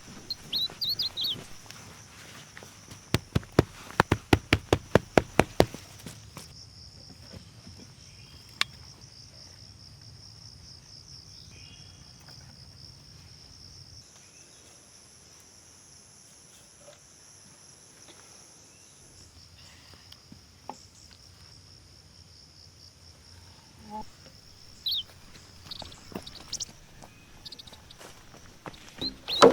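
Steady high chirring of insects throughout. A few seconds in there is a quick run of about a dozen sharp knocks, around five a second, and a few short high chirps come near the end.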